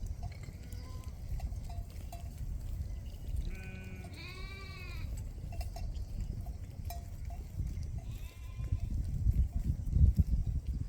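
Sheep bleating: one clear, wavering bleat about four seconds in and a fainter one about eight seconds in, over a low rumble that grows louder near the end.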